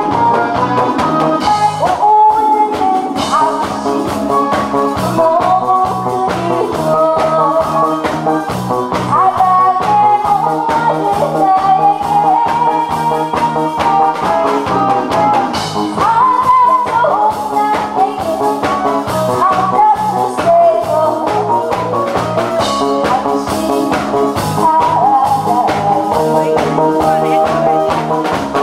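Backing-track music with a steady beat, bass and guitar, and a woman singing into a microphone over it for part of the time.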